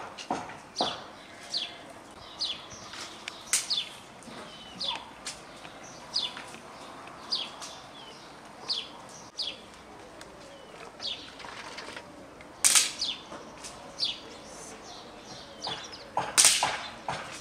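A small bird calls over and over with short falling chirps, about one or two a second. Brief loud rattles of coarse salt tipped from a plastic bowl into jars of cucumbers come just after the start, about 13 seconds in and near the end.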